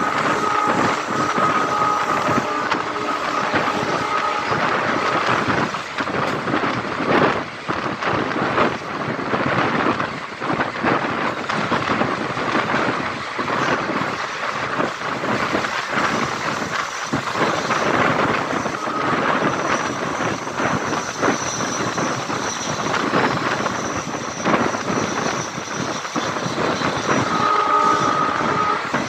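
Passenger train coach running along the track: wheels clattering on the rails and air rushing past, with a high whine that comes and goes.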